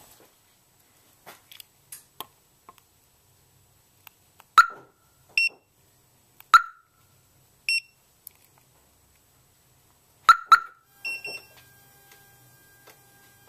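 Compact DEI 514N 12-volt car alarm siren giving a few short, soft chirps, each just after a sharp click, with pauses of a couple of seconds between them.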